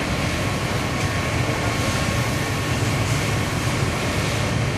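Steady low rumble under a hiss: a car on fire burning fiercely, with a fire engine's diesel engine and pump running close by.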